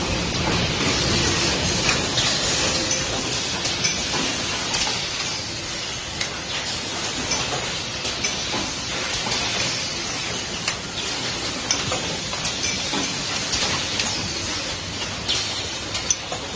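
Factory-floor noise from cutting-wheel moulding machines: a steady machine hiss and hum with frequent, irregular clicks and knocks.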